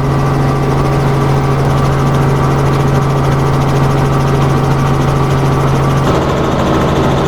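Aircraft engine running with a loud, steady drone, easing slightly about six seconds in.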